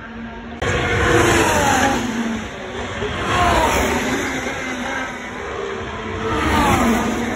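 Racing cars passing on the circuit, their engine notes falling sharply in pitch as each goes by. About three passes, with the engine noise jumping up about half a second in.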